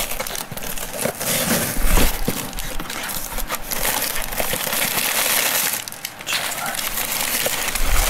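Crumpled newspaper packing rustling and crackling as a hand digs through it inside a cardboard box, with the box shifting and bumping against the table.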